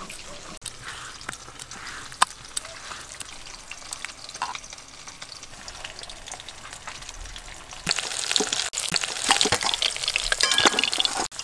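Fish sizzling and crackling as it fries in mustard oil in a karai, with scattered pops of oil. The frying gets louder and denser about eight seconds in.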